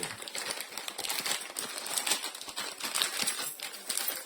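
Small tools and screwdriver bits clicking and clinking in a quick, irregular patter as they are rummaged through in search of the right screwdriver.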